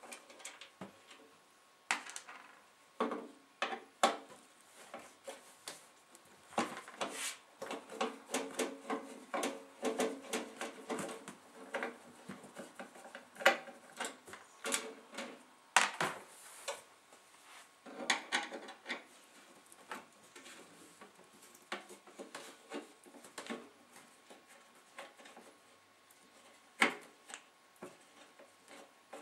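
Phillips screwdriver undoing the screws of a steel CD-player case: irregular clicks, scrapes and light metal clinks as the screws are turned out and handled.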